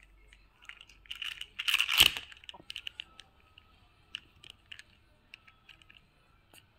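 Handling noise of a phone held right against the action: scattered clicks and rustles, with a louder rubbing burst that ends in a sharp knock about two seconds in.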